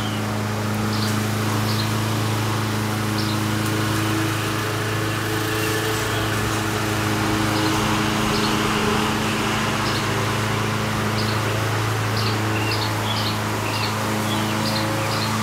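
A lawn mower engine hums steadily at an even pitch over a continuous wash of road traffic noise. Short bird chirps come now and then, more often near the end.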